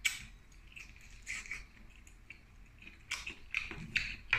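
A person eating seafood boil by hand: a series of short, wet smacking and sucking mouth sounds, busiest in the last second and a half.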